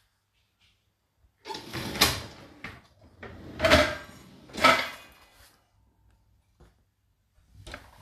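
Whirlpool dishwasher rack sliding on its rails with loaded dishes aboard: three rattling slides about a second apart, then a fainter one near the end.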